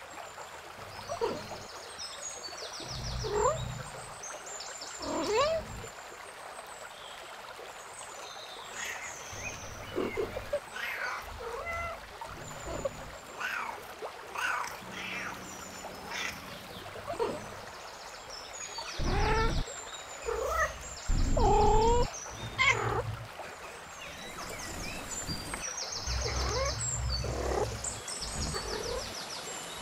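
Cats meowing: many short calls one after another, some rising and some falling in pitch, with faint high chirping in the background.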